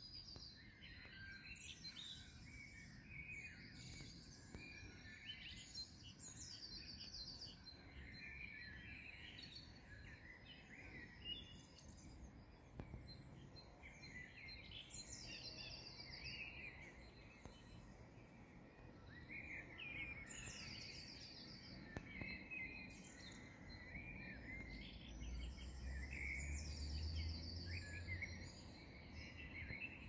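Faint dawn chorus of several songbirds singing at once, one of them repeating a short, descending, high trilled phrase every few seconds. A low rumble rises near the end.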